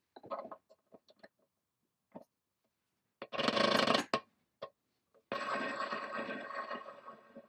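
Small metal pinion gear being fitted onto a steel shaft of an antique Babcock tester: a few light clicks, a short scraping rush about three seconds in, then a longer rushing sound that fades near the end.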